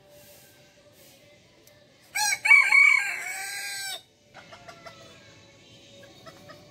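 A bantam rooster crows once, about two seconds in: a loud crow lasting about two seconds that breaks and bends in pitch before trailing off.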